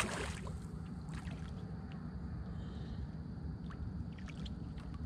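Water gurgling against a small boat's hull over a steady low rumble, with a short noisy burst right at the start and scattered faint clicks.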